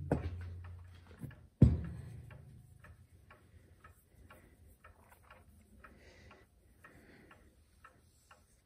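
The empty brass case of a Chelsea ship's clock knocks against a wooden bench about a second and a half in and rings briefly. After that comes a run of faint light clicks and rubbing as the case is handled and rubbed with a waxing cloth.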